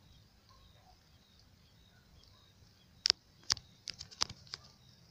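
Bonfire wood crackling: quiet for about three seconds, then a quick run of sharp pops and snaps over a second and a half.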